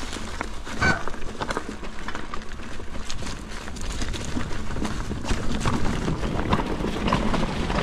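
Mountain bike rolling downhill over a trail covered in dry leaves: the tyres crunch and rustle through the leaves, with a steady stream of small clicks and knocks as the bike rattles over the rough ground.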